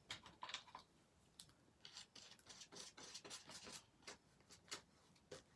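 Faint, irregular scratchy strokes of a flat paintbrush working matte medium over the edge of a glued paper cut-out to press it down.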